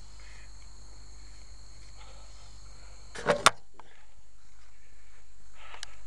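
Steady high-pitched chirring of crickets, with two sharp knocks a little past halfway.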